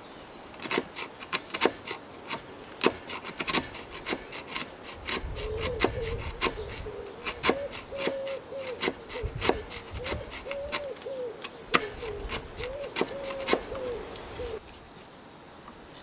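A hand blade paring chips out of soft pallet wood: a run of sharp, irregular cutting clicks and scrapes as the cut is worked deeper. From about five seconds in until near the end, a low wavering tone runs under the cuts.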